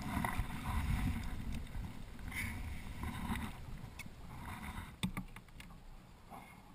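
Water sloshing and lapping against a fishing kayak's hull as a ray is lifted aboard, with wind on the microphone and a few sharp knocks from handling about four and five seconds in; the sloshing fades toward the end.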